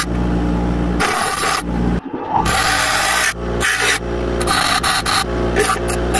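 Bench grinder running with a steady motor hum, while a steel knife blade is pressed to the wheel in repeated short passes of about a second each, the grinding noise coming and going with each pass.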